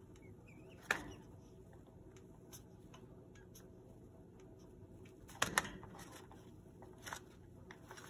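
An eclectus parrot moving about in its cage: scattered sharp clicks and rustles, the loudest a close pair about five and a half seconds in, with a faint short chirp just after the start.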